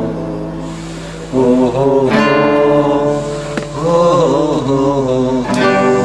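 Acoustic guitar strumming chords, which ring on between strums. A man's voice sings a short wavering melodic phrase over it near the middle.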